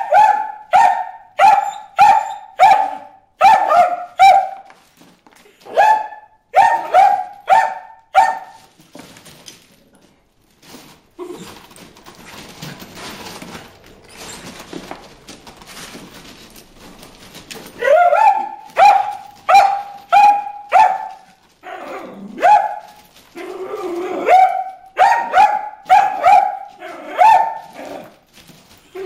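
A dog barking at goldfish in a pond: rapid, high-pitched barks about two a second, in two long runs with a pause of about nine seconds in the middle filled only by faint rustling.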